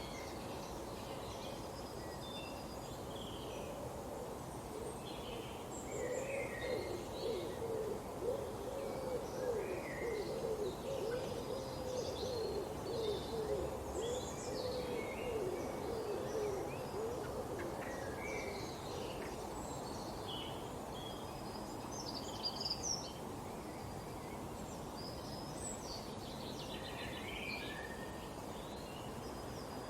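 Forest birds calling: scattered short high chirps run throughout. A low, wavering trilled call runs from about six seconds in until about eighteen seconds, over a steady background hiss.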